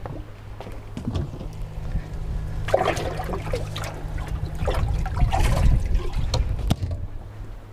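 Water splashing and sloshing in a boat's live well as a hand reaches in and grabs a large bass, the loudest splashes about three seconds in and again past five seconds. Sharp knocks from the hatch and hull come in between, over a steady low hum.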